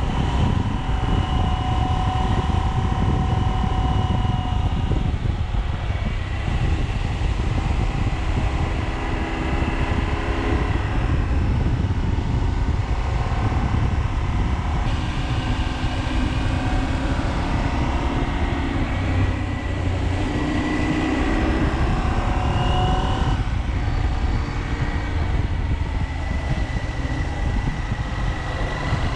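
KTM 790 Adventure motorcycle's parallel-twin engine running under way, over a steady low rumble. The engine note rises and falls every few seconds.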